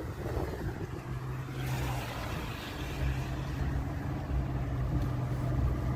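A car driving: a steady engine hum over low road rumble.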